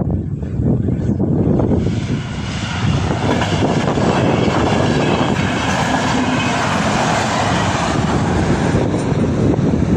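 A train running over the level crossing: a steady rush of wheel and running noise that builds about two seconds in and then holds.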